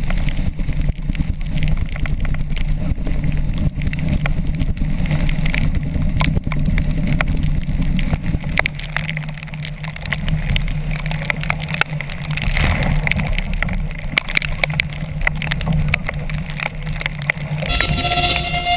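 Storm wind buffeting a GoPro's microphone, with a steady low rumble and many sharp spatters of rain and spray hitting the camera as a sailing kayak pitches through rough sea. Music comes in near the end.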